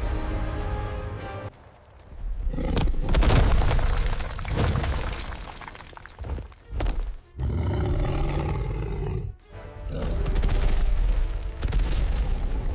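Dramatic soundtrack music mixed with heavy booms and creature roars, dropping out suddenly several times.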